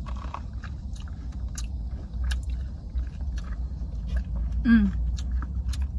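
Chewing candied fruit with a hard candy shell: irregular small crisp crunches as the sugar coating breaks, over a steady low hum. A short voiced 'mm' falls in pitch a little before the end.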